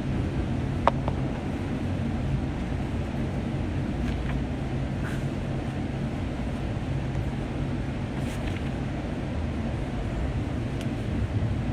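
Light-rail train in motion, heard from inside the car: a steady low rumble of the running train, with one sharp click about a second in.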